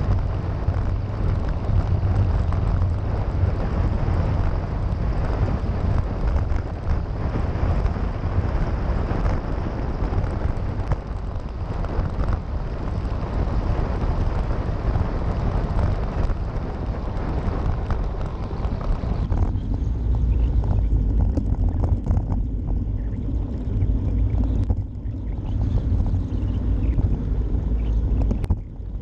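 Wind buffeting the microphone of a bike-mounted camera during a fast road-bike descent, a steady low rumble with hiss above it. About twenty seconds in the hiss thins out, leaving mostly the low rumble.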